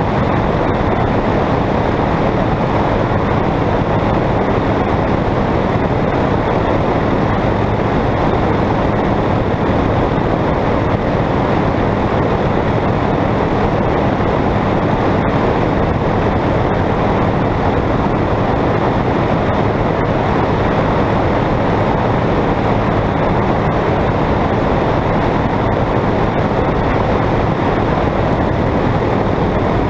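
Single-engine light aircraft's piston engine and propeller running steadily in level flight, mixed with heavy wind rush on a camera mounted outside on the wing.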